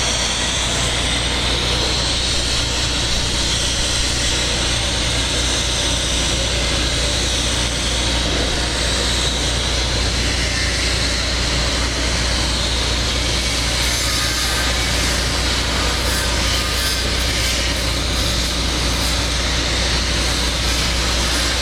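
TIG welding arc running steadily on the cap pass of a 2-inch pipe joint: an even hiss with a low hum underneath.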